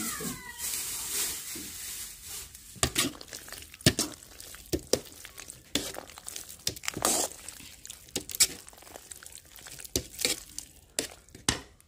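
A spoon stirring mayonnaise-coated macaroni in a mixing bowl. There is a steady mixing noise for about the first second and a half, then irregular scrapes and clinks of the spoon against the bowl.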